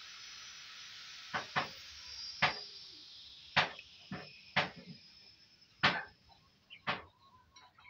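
About eight sharp, short taps or clicks at irregular intervals over a steady hiss that fades away in the first few seconds.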